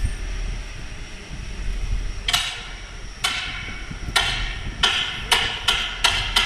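A series of sharp, ringing cracks starting about two seconds in, coming faster and faster.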